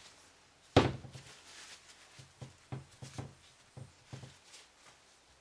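One sharp knock about a second in, then a run of lighter, irregular knocks and taps: bars of cold-process soap and the wooden soap cutter being handled and set down on a table.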